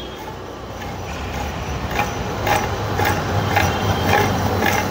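Rebuilt Mercedes ML 350 transfer case being turned over by hand, its gears and chain drive giving sharp clicks about twice a second from about two seconds in, over a low steady hum.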